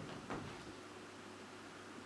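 Quiet room tone: a faint low hiss and steady hum, with one soft tap about a third of a second in.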